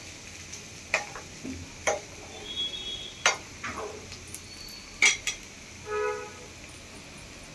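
Metal spatula stirring fried plantain pieces in a nonstick frying pan, scraping and knocking against the pan in a few sharp clicks spread through the first five seconds. A short pitched tone sounds near six seconds.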